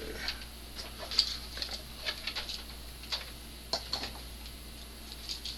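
Scattered light clicks and taps of small hand tools handled against the metal and board of a TV circuit module, irregular and a few to the second.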